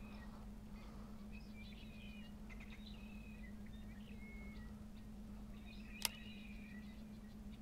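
Faint bird chirps and short whistled calls, over a steady low hum. One sharp click about six seconds in.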